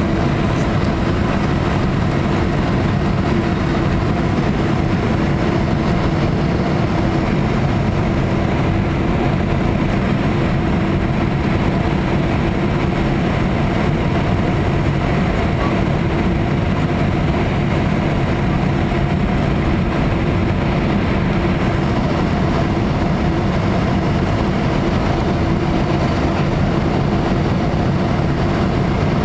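Steady cabin noise inside a Boeing 767-200 airliner on approach to landing: the drone of its twin jet engines and the rush of airflow, with a steady low hum.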